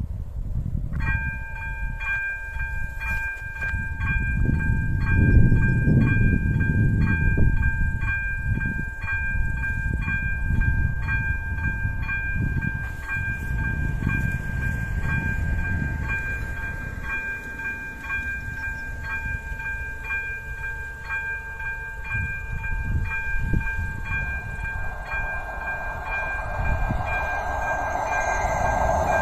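Electronic bell of an AŽD 97 level-crossing warning signal starting about a second in and ringing on in even, repeated strikes, the sign that a train is approaching the crossing. Near the end a rising rumble of the oncoming train builds under it.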